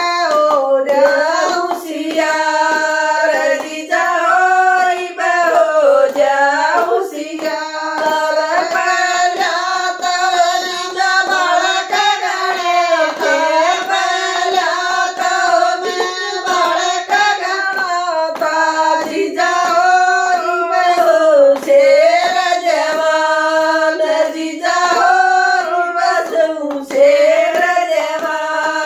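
Women singing a Haryanvi jakdi folk song together, unaccompanied, keeping time with steady hand claps.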